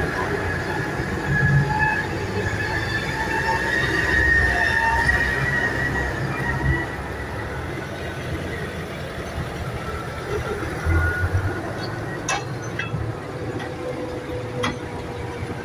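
Modern diesel farm tractors driving slowly past one after another on gravel, engines running, with a high steady whine over them that fades about seven seconds in. Two sharp clicks near the end.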